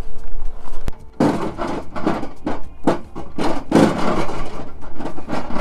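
A quick run of knocks and scrapes, roughly three a second, from hands-on work at the van. It starts about a second in, after a single sharp click.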